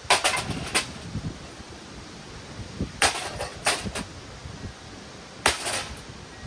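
A Hunter Summer Breeze ceiling fan's blade arm being struck and broken: three bursts of sharp clattering impacts, one at the start, one about three seconds in and one about five and a half seconds in.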